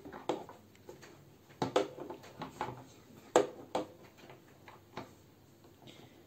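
Metal crank handle of a Mademoiselle Toga Cut It All die-cutting machine being worked into its socket in the machine's plastic side: a series of sharp clicks and knocks, with two louder knocks near the middle.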